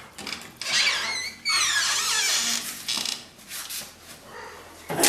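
Korat cat meowing: one long, high, wavering cry starting about a second and a half in, just after a brief rattle.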